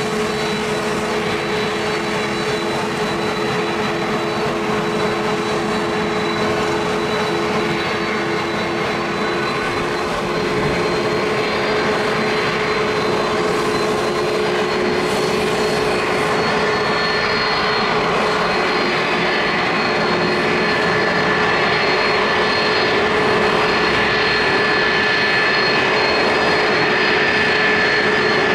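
Boeing 767-300ER's twin jet engines running steadily as the airliner touches down and rolls out along the runway. A steady whine sits over the engine noise, and a higher whine grows stronger in the second half as the sound gets slightly louder.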